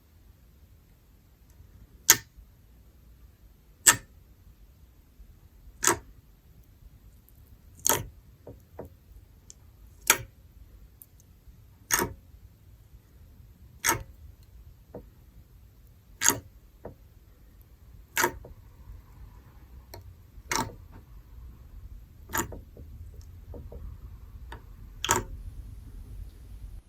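Sharp clicks, one about every two seconds, twelve in all, with a few fainter ticks in between.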